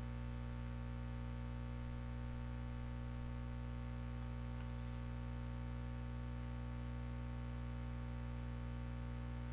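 Steady electrical hum: a low buzz with a ladder of evenly spaced overtones, unchanging throughout.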